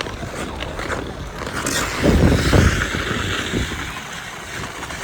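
Ice skate blades scraping and gliding on canal ice, with wind buffeting the microphone; a louder rush and scrape about two seconds in.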